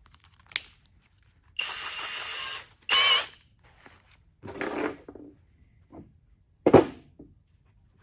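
DCK 20V brushless cordless drill boring a small pilot hole in a few short trigger bursts, about a second or less each, the motor whining as the bit cuts. A sharp knock comes near the end.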